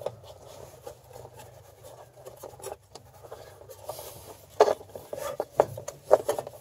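A tractor's rubber fan belt being worked by hand around the engine fan and shroud: rubbing and scraping with small clicks and light knocks, a few sharper knocks in the last couple of seconds.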